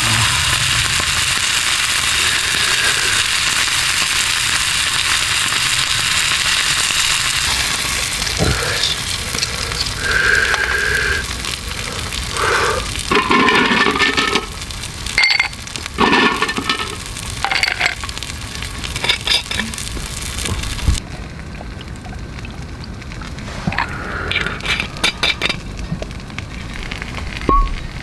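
A thick steak sizzling in an iron frying pan over campfire embers: a steady frying hiss that thins out partway through and drops away about three quarters of the way in. Scattered short clinks and knocks come in the second half.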